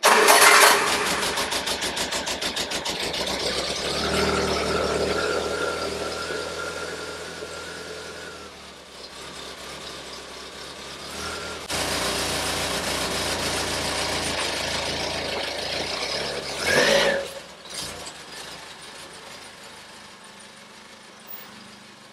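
Triumph Spitfire's four-cylinder engine started, catching at once and running, then pulling away and fading as the car is driven out of the garage. There is a short louder burst about seventeen seconds in.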